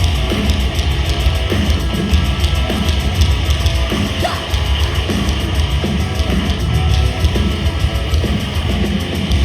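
Live heavy rock band playing the instrumental opening of a song, with loud distorted guitars and drums; the full band comes in suddenly right at the start after a brief lull.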